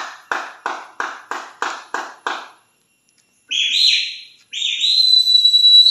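Whistled calling: a quick run of about eight short, sharp notes, then after a pause a rising whistle held on one high, steady pitch near the end. This is the call used to summon the wild monkeys.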